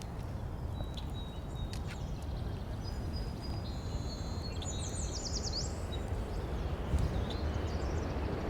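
Outdoor field ambience: steady low background noise with small birds chirping. A quick run of chirps and trills comes in the middle.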